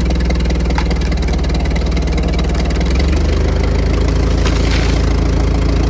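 Tractor engine running steadily under load as it pulls a roped spruce over, its note changing about three seconds in. A faint sharp crack comes about a second in.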